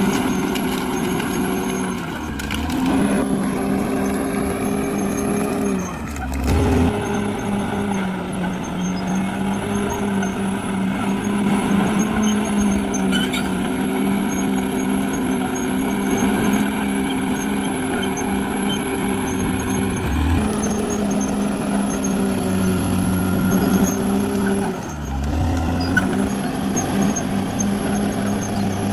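Caterpillar D6R XL bulldozer running steadily under work, a thin high whine riding above the engine note. The engine dips briefly and comes back up a few times, near 2, 6, 20 and 25 seconds in.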